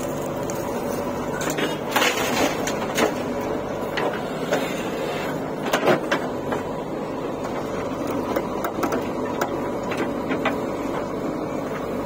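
JCB 3DX backhoe loader's diesel engine running steadily under hydraulic load while the backhoe dumps soil into a tractor trolley and swings back to dig. Sharp knocks and clatter of soil and stones hitting the trolley and the bucket's steel come about two seconds in, again around three seconds and near six seconds.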